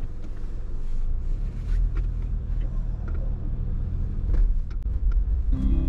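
Toyota HiAce van pulling away and driving slowly, a steady low rumble of engine and tyres heard from inside the cabin, with a few faint clicks.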